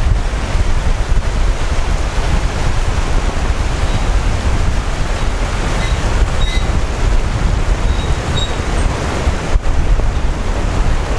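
Strong wind buffeting the microphone in a steady loud roar, with the rush of the river below the bridge mixed in.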